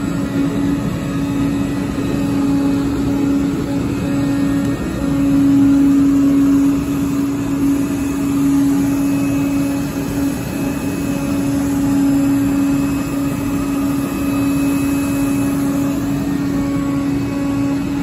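Oscillating-knife flatbed cutting machine running, a steady mechanical hum with a strong droning tone.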